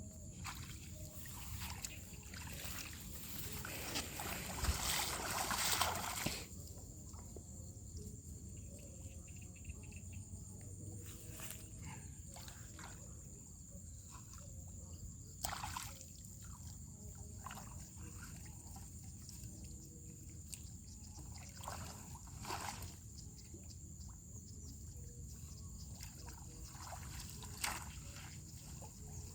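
Water sloshing and trickling, with a longer rush of splashing water about four to six seconds in and scattered small splashes after it.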